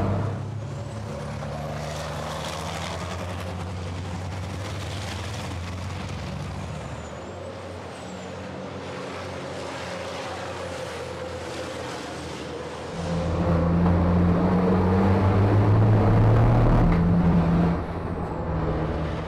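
Race trucks' turbodiesel engines running hard at racing speed, a steady engine drone with a hiss of air and tyre noise over it. About two-thirds through the engine sound gets clearly louder for several seconds, then drops back.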